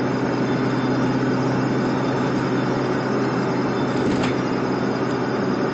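Steady engine hum and road noise inside a moving car's cabin, with one brief tick about four seconds in.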